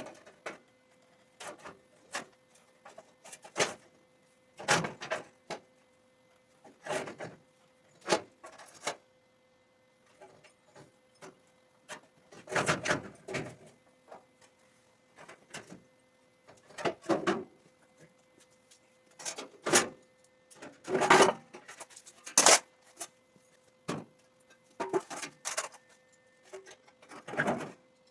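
Irregular knocks and clatters of metal parts being handled and worked, a dozen or so scattered hits, the loudest about halfway through and two thirds of the way through, over a faint steady electrical hum.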